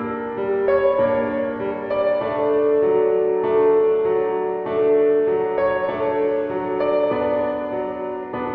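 Slow background music on a keyboard instrument, piano-like. Held notes and chords change about once a second.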